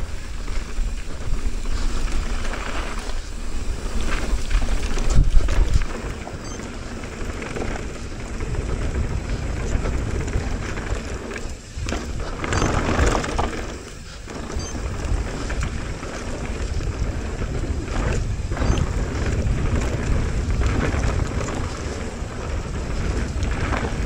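Mountain bike descending a downhill trail at speed: wind noise on the microphone over the steady rush and rattle of tyres and bike on dirt, broken by frequent knocks. There is a hard jolt about five seconds in and a louder rush of noise around the middle.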